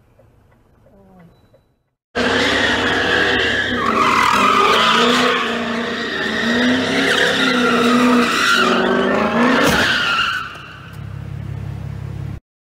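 Car tyres squealing on concrete as the car drifts in circles, with the engine revving under the squeal. About ten seconds in there is a sharp knock. The squeal then stops, leaving the engine running lower until the sound cuts off suddenly.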